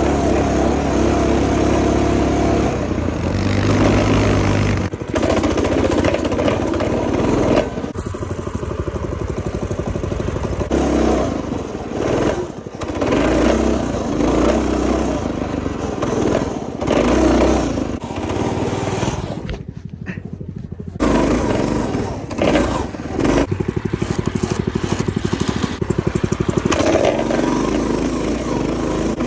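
A minibike's small engine, revving up and falling back over and over as the rider works the throttle while riding through snow. About two-thirds of the way through it drops back briefly, then picks up again.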